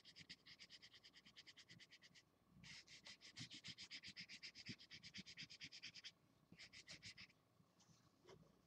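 Felt-tip marker scribbling fast back and forth on paper, faint, about eight strokes a second. It pauses briefly twice and stops a little before the end.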